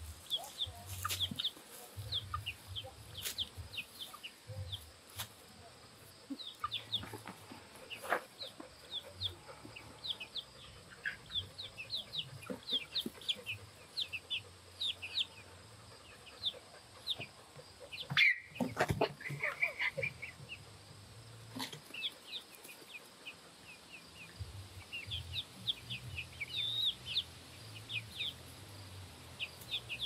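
A flock of backyard chickens clucking and chirping, with many short high chirps scattered throughout and one louder call about eighteen seconds in.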